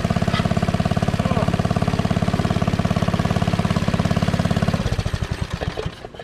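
Briggs & Stratton 190 cc single-cylinder go-kart engine running steadily, then shut off about five seconds in, its firing slowing and stopping within a second.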